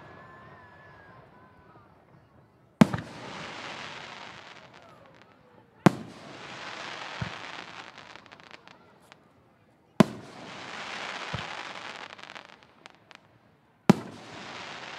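Aerial firework shells bursting: four sharp bangs a few seconds apart, each followed by a few seconds of crackling that fades away.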